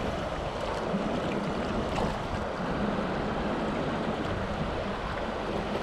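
Steady rush of shallow river water flowing past, with a couple of faint ticks.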